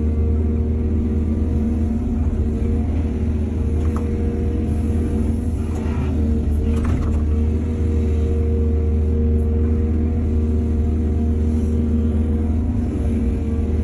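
Heavy diesel engine of an excavator running steadily, with a couple of brief noisy bursts about six and seven seconds in.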